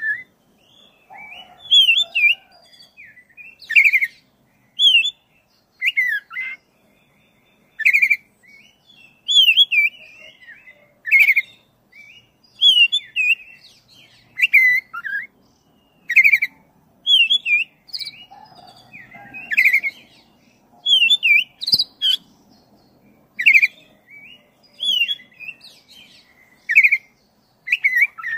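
Black-breasted oriental magpie-robin (kacer dada hitam) singing: a long run of short, loud whistled phrases that rise and fall, repeating every second or two.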